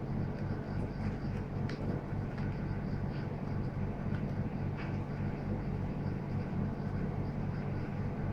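Steady low machinery hum, with a few faint small clicks from a screwdriver and the plastic connector being handled as the connector screw is driven back in.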